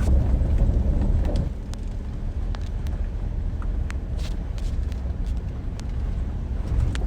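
Car travelling along an unpaved forest road: a steady low rumble of road and wind noise with scattered small ticks and knocks, dropping a little in level about a second and a half in.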